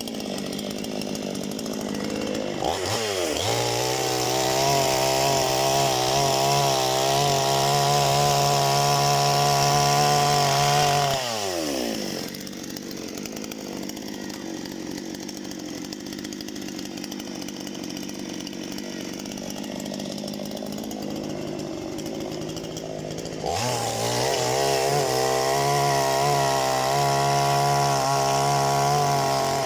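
Parma BP-058 two-stroke petrol chainsaw revving up from idle to a high steady run for about eight seconds, dropping back to idle, then revving up again about two-thirds of the way through, as it cuts firewood.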